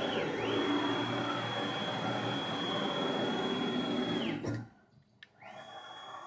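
Onefinity CNC's stepper motors driving the ball screws as an axis moves: a steady high whine that ramps up, holds for about four seconds and winds down, then starts up again about a second later. The freshly oiled ball screws are being run back and forth to break the lubricant in.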